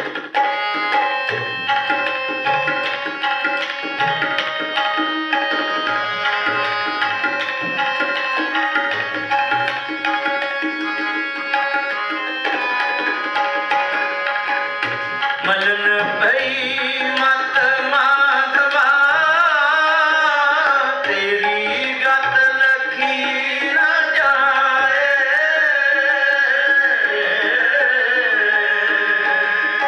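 Devotional kirtan: harmonium playing sustained chords with tabla strokes beneath. About halfway through, a sung voice comes in with a gliding, ornamented melody over the harmonium and tabla.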